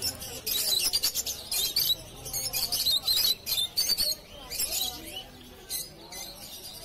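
A flock of caged lovebirds chattering: many quick, high-pitched chirps and squeaks overlapping without pause.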